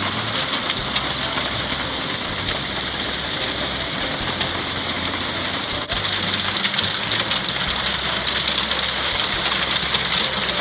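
Heavy rain mixed with hail beating down on a roof, vehicles and ground: a dense, steady hiss with a constant patter of hits.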